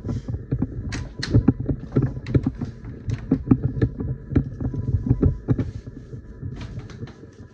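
Close handling noise: an irregular run of clicks, knocks and rubbing, as a plug and cord are handled at a power strip, over a faint steady high whine.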